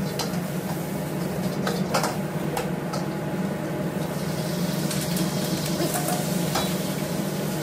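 Metal wok ladle scraping and knocking against a carbon-steel wok as fried rice is stir-fried and tossed over a gas wok burner, with the rice sizzling. Irregular sharp clanks about once a second sit over a steady low hum, and the sizzle grows about halfway through.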